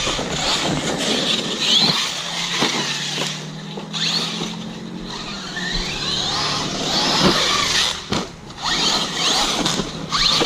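Arrma Kraton 6S RC monster truck being driven: its brushless electric motor whines up and down in pitch with the throttle, over a steady run of tyre and drivetrain noise, with a brief lull about eight seconds in.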